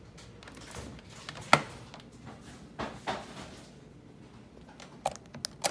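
A few sharp clicks and knocks from a plastic power adapter brick and its cables being handled, the loudest about a second and a half in.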